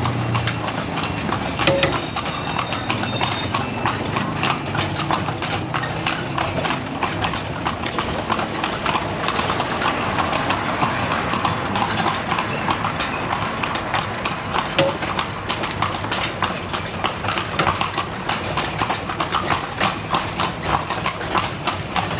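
Hooves of a pair of carriage horses clip-clopping steadily on a paved street as they pull a horse-drawn carriage at a walk.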